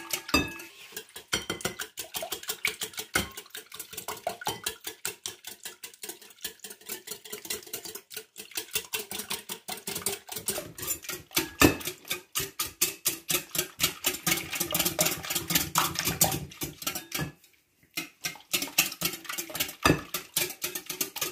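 Metal balloon whisk beating an egg-and-milk mixture in a glass bowl: rapid, steady clinking of the wires against the glass with a liquid slosh. There is a short pause about three-quarters of the way through.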